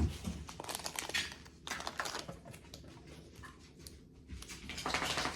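Plastic ingredient packets being handled and set down: scattered light clicks, taps and crinkles, with a louder rustle just before the end.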